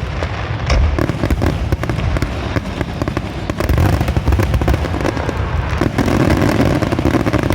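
Fireworks going off in a dense, rapid barrage of booms and crackling bursts, with no let-up.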